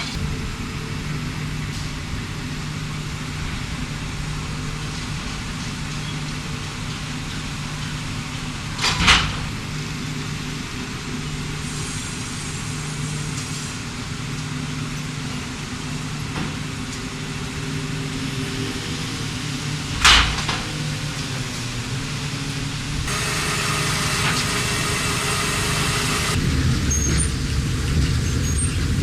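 Sawmill log-handling machinery running with a steady engine hum. Two loud bangs come about eleven seconds apart, and a burst of hissing follows near the end.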